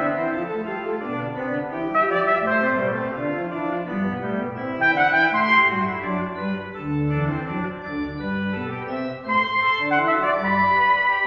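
Instrumental background music: held chords and a melody over a moving bass line.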